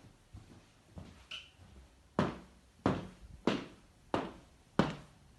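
Footsteps at a steady walking pace, about three steps every two seconds: soft for the first two seconds, then sharp and clear. There is a brief faint squeak early on.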